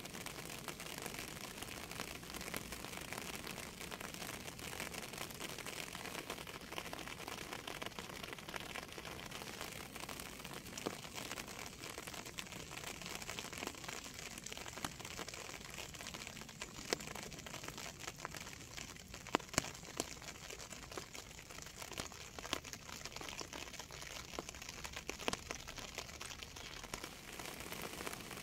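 Steady rain falling close by: an even hiss dotted with many sharp drop ticks, with a few louder single drops in the second half.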